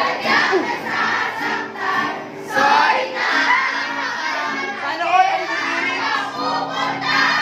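A group of young voices singing together, accompanied by an acoustic guitar.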